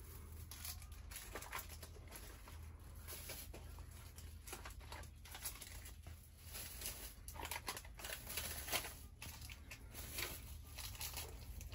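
Faint, scattered rustling and light clicks over a low steady hum, the room tone of a small, quiet shop.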